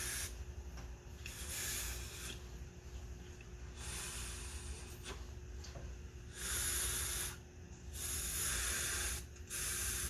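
Breath blown by mouth in about five puffs through the fuel inlet tube of a Kawasaki Bayou 300 carburetor, air hissing through the float needle valve. It is a test of the float needle, the float moved up and down to make sure the needle holds and shuts the air off.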